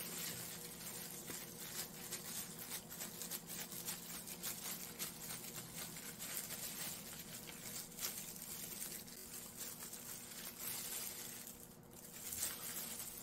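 Clear disposable plastic gloves crinkling and rustling in many small irregular crackles as hands roll dough, over a faint steady hum.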